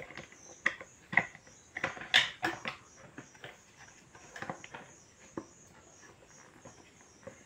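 Hard plastic furniture parts knocking, clicking and scraping as hands try to push a leg into its socket: irregular light taps, busiest in the first three seconds.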